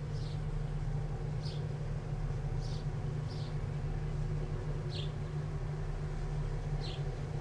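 Steady low machinery rumble with a faint hum, and a small bird giving short, high, falling chirps about once a second over it.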